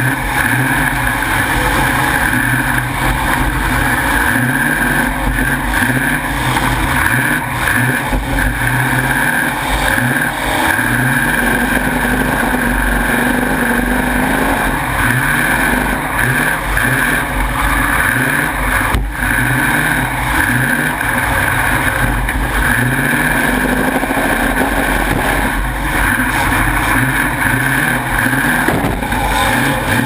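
Demolition derby car's engine running loud through open exhaust stacks that stick up through the hood, its revs rising and falling over and over. A single sharp bang comes about two-thirds of the way through.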